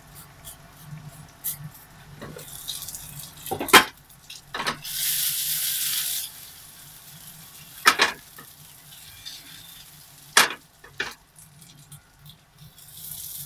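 Frying pan sizzling as nori-wrapped chicken-mince rolls fry, with several sharp knocks of the lid and pan being handled. A louder burst of sizzling comes about five seconds in and lasts a second or so.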